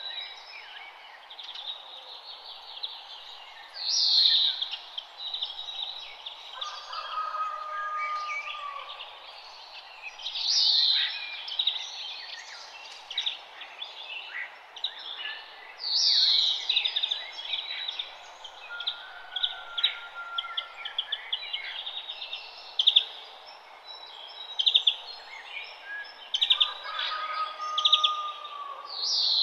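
Morning chorus of several songbirds chirping and singing over faint background hiss. One bird repeats a loud call that sweeps downward, about every six seconds, and lower whistled notes come in a few times.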